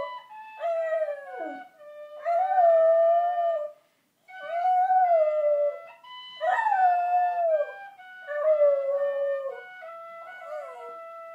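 Border terrier howling along to a penny whistle: about six wavering howls with short breaks between them, over the whistle's steady held notes. The last part is quieter.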